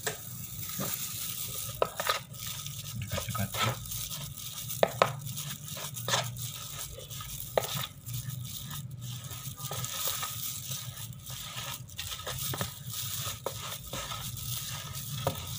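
Plastic spatula scraping and knocking against a metal pan as dry flour and egg are stirred together, in irregular strokes and taps, over a low steady hum.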